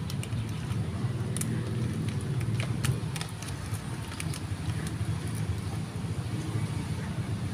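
Steady low outdoor rumble, with scattered short crackles from a snack-chip bag being handled.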